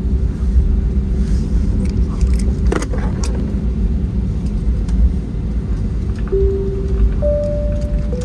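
Airbus A321 cabin noise while taxiing after landing: a steady low rumble of the airliner rolling on the ground. A steady hum changes pitch twice near the end, and a couple of sharp clicks come about three seconds in.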